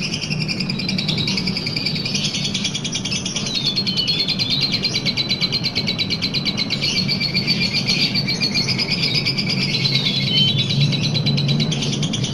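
Lovebird ngekek: a long, unbroken, shrill chattering trill of very rapid high notes, over a low steady hum.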